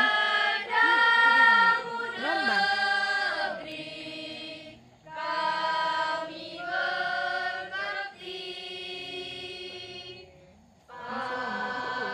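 A mixed school choir of teenage voices singing an Indonesian national song a cappella in held, sustained phrases, with brief pauses for breath about five seconds in and again near the end.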